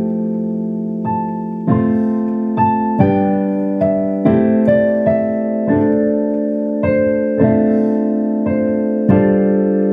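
Solo piano playing a slow melody over sustained chords, with a new note or chord struck about every half second to a second.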